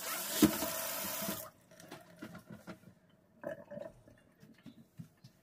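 Water from a pull-down kitchen faucet spray head running into a stainless steel sink, with a sharp knock about half a second in, shut off about a second and a half in. Faint small ticks and knocks follow.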